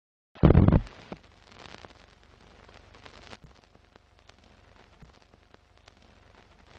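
Sound effects of a film-countdown leader: a loud hit about half a second in, then a low old-film crackle with scattered clicks and pops.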